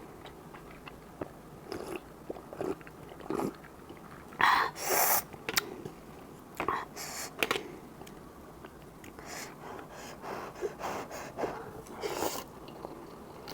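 Close-up eating sounds of a person eating Korean cup ramen noodles: scattered chewing and bites, with two louder noisy bursts, one about four and a half seconds in and one near the end.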